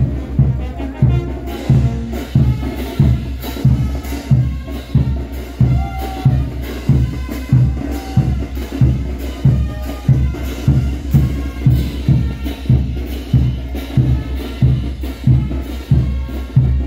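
Procession band drumming for a morenos dance troupe. A bass drum beats steadily about twice a second, with sharper, crisp strokes between the beats.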